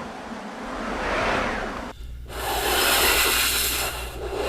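Foley wind machine, a slatted wooden drum turned against canvas, making swelling and fading whooshes of wind. About two seconds in, a louder, brighter hissing wind sound takes over.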